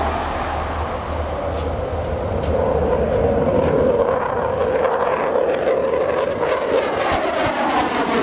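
An F-15 Eagle fighter's twin turbofan jet engines roar as it flies overhead. The noise grows louder about two and a half seconds in, and a harsh crackle sets in over the last couple of seconds as the jet passes.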